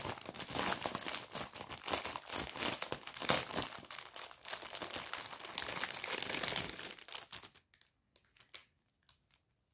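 Plastic kit packaging crinkling and rustling as it is handled, busy for about seven seconds. After that come a few faint clicks, then near silence.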